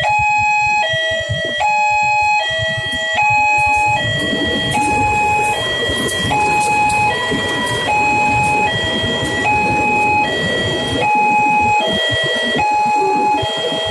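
Railway level-crossing warning siren sounding a steady high-low two-tone alarm, each tone held just under a second. A heavy rumble swells under it from about four seconds in and fades near eleven seconds.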